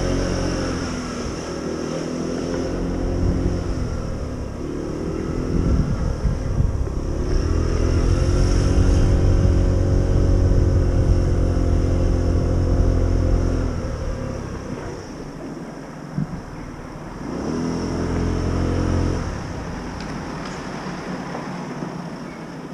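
A motor vehicle engine running close by, its pitch rising and falling with a low rumble. It is loudest in the middle stretch, dies down about fourteen seconds in, and swells briefly again near eighteen seconds.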